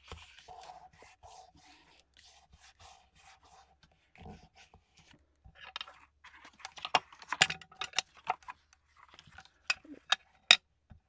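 Brown file-folder card being pressed and handled by hand: soft rustling, then louder crinkling about six seconds in, with a few sharp clicks near the end.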